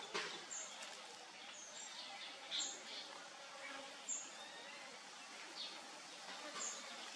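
Faint, short, high bird chirps about half a dozen times, scattered over a steady outdoor hiss.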